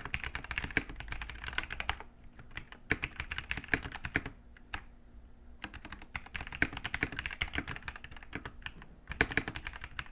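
Typing on a Dierya T83 gasket-mounted mechanical keyboard with its stock red linear switches and pudding keycaps: fast runs of keystrokes broken by short pauses.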